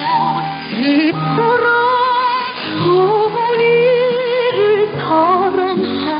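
A song with a woman singing with vibrato over instrumental accompaniment, heard through a shortwave radio receiver with a narrow audio bandwidth.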